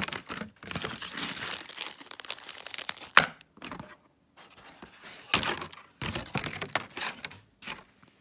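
Packaging rustling and crinkling in uneven bursts as it is opened and unfolded, with one sharp click a little past three seconds in.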